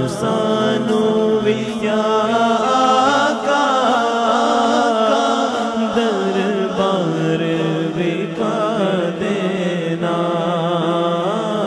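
A man singing a Punjabi naat solo into a microphone, drawing out long ornamented notes that slide up and down in pitch, with no instruments.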